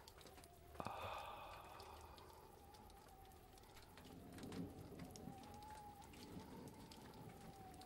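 Near silence: faint room tone with a steady low hum and scattered soft crackles, and a brief soft sound about a second in that fades out.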